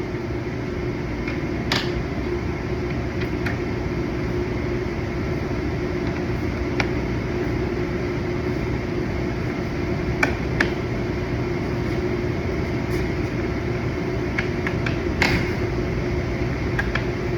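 A steady mechanical hum, fan-like, with a few light clicks and knocks now and then.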